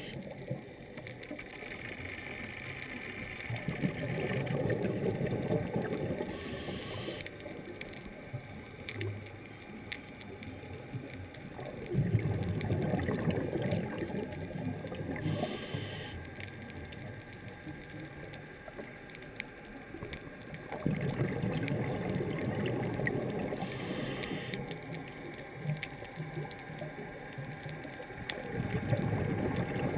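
A scuba diver's regulator breathing, heard underwater through a GoPro dive housing. A rush of exhaled bubbles comes about every eight to nine seconds, four times, and each is followed by a short hiss of the diver breathing in.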